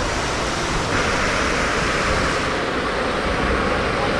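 Steady rush of water through a tube water slide as a tube rider goes down it. The rush gets brighter about a second in.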